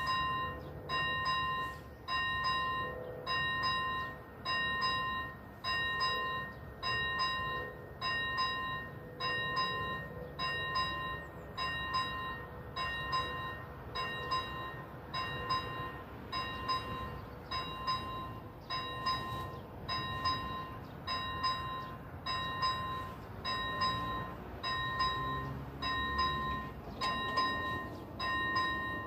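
Railway level crossing warning bell ringing at an even beat of about one ring a second. It is the signal that a train is approaching and the barriers are coming down.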